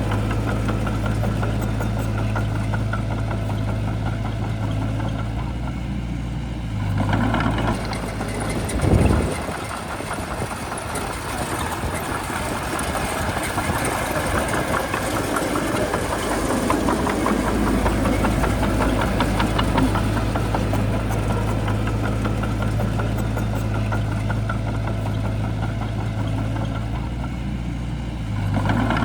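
Shantui bulldozer's diesel engine running steadily. About nine seconds in it surges briefly, then runs with a busier, rougher sound for several seconds before settling back to a steady drone.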